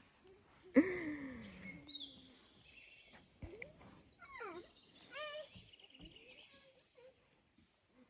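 Quiet forest ambience with faint birdsong. About a second in comes a short falling call, and around four to five seconds a few more short sliding calls, voice-like and without words.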